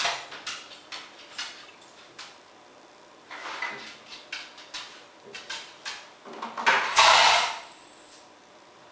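A beagle moving about on a wooden dining table: irregular clicks and knocks of its claws and of objects bumped on the tabletop, with a louder scrape of just under a second about seven seconds in, as something is pushed across the table.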